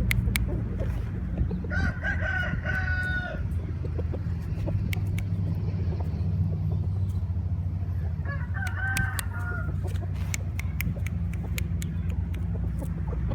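Thai game roosters crowing: two crows of about a second and a half each, one near the start and one past the middle. A steady low rumble and scattered sharp ticks run underneath.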